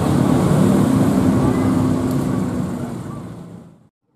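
An engine running steadily close by, with people talking over it; the sound fades out near the end.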